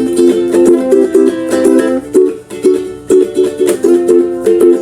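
Ukulele strummed in chords, several quick strokes a second with changes of chord.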